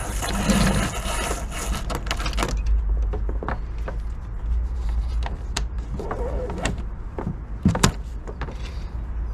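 New 7 mm braided rope being pulled through a sailboat's traveller fittings: a rushing rasp of line running through the hardware for the first couple of seconds, then scattered small clicks and knocks of rope and fittings, the sharpest near the end, over a steady low rumble.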